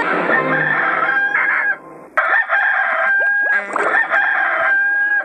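Rooster crowing repeatedly in long, held cock-a-doodle-doo calls, with a short break about two seconds in. This is the Hollywood Edge library rooster sound effect.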